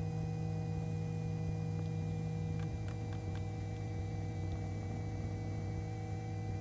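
Robinson R22 helicopter engine and rotor running at warm-up RPM while the throttle is brought to 75%, heard as a steady low hum. One low tone in the hum drops out a little under three seconds in, and a few faint clicks come around the same time.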